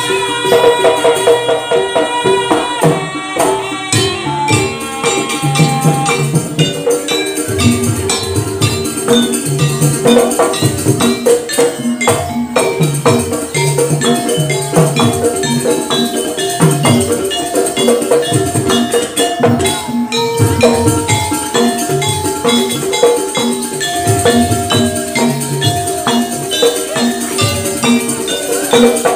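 Jaranan gamelan music: drums beating a steady, driving rhythm under a repeating melody of held, changing notes from tuned percussion, with a bright metallic jingle on top.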